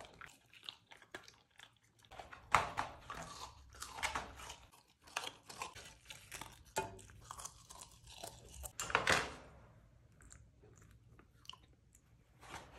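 A puppy chewing and crunching its food from a stainless steel bowl in quick, irregular bites. The loudest crunches come about two and a half seconds in and again near nine seconds, after which the chewing mostly stops, apart from one short crunch near the end.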